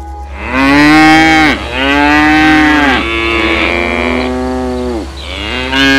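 Cow mooing: four long moos one after another, each rising and then falling in pitch.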